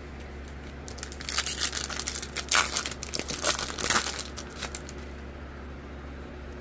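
Wrapper of a baseball card pack crinkling and tearing as it is ripped open by hand. The sound starts about a second in and stops about five seconds in.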